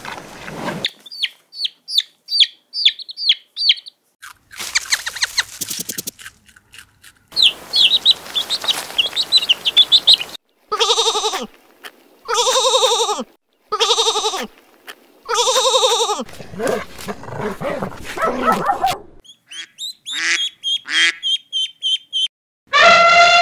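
A run of animal calls. First come high chirps. Then sheep bleat four times, each call long and wavering, and near the end ducklings peep in quick high chirps.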